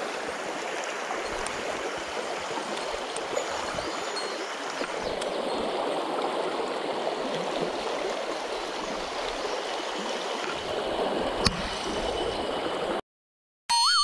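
Mountain stream water rushing steadily, with one sharp click about eleven seconds in. The water cuts off suddenly near the end, and a short wavering musical jingle starts.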